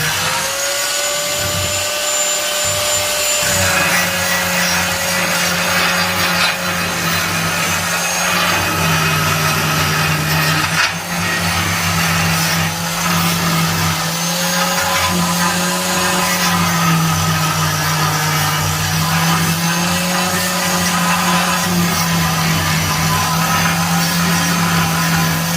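Metalworking shop ambience: an electric power tool's motor running continuously over a dense hiss, its pitch wavering slightly up and down.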